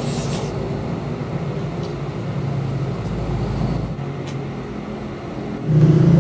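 Steady low mechanical hum with a couple of faint clicks.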